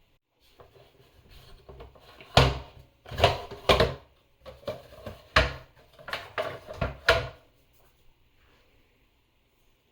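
Plastic parts of a Shark Duo Clean vacuum cleaner being handled during cleaning: rustling with about seven sharp knocks and clicks spread over the first seven seconds, then quiet.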